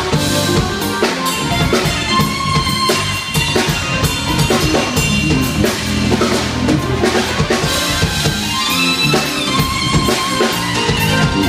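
Yamaha drum kit played live, with rapid snare, tom, bass drum and cymbal hits throughout, over pitched backing music.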